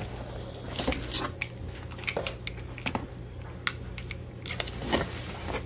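Bubble wrap crinkling and crackling in irregular bursts as it is handled and pulled off a packed hedge trimmer, with the cardboard box shuffling.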